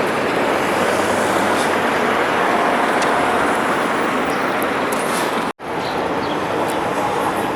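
Steady roar of city road traffic, an even wash of noise with no distinct events, broken by a split-second dropout a little past halfway.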